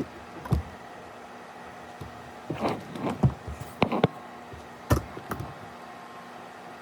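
A scattering of knocks and clatters from objects being handled and set down, one about half a second in, a cluster in the middle and two more near five seconds, over a steady low hum.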